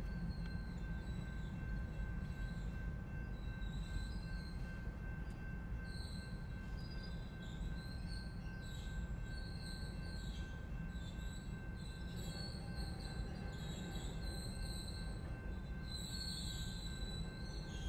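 Train cars rolling past with a steady low rumble, and high wheel squeal that wavers and comes and goes over it.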